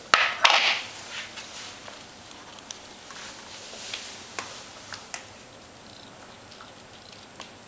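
A dish set down on a wooden floor with a clatter and a short scrape, then Ocicat kittens eating raw calf liver from it, with scattered small clicks.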